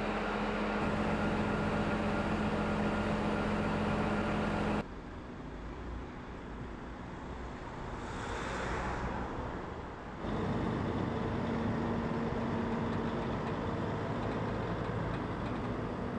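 Heavy truck engines running with a steady hum. It drops abruptly to a quieter stretch about five seconds in, where a vehicle swells past, and the steady hum returns abruptly about ten seconds in.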